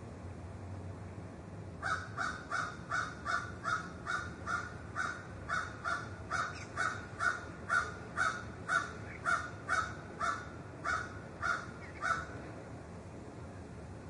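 A crow cawing in a fast, even run of short calls, two or three a second, starting about two seconds in and stopping about two seconds before the end. A faint steady hiss lies underneath.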